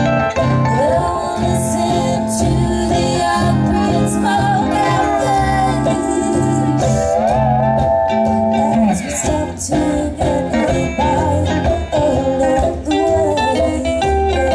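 Acoustic country band playing live: mandolin, upright bass and guitar, with a woman singing.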